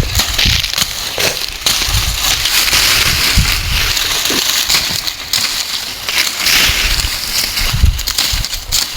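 Dry maize stalks and leaves crackling and rustling as they are handled and cut, with irregular dull low thumps throughout.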